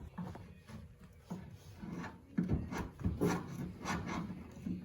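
Scattered light knocks and scraping, several separate strikes a second or so apart, with rubbing between them.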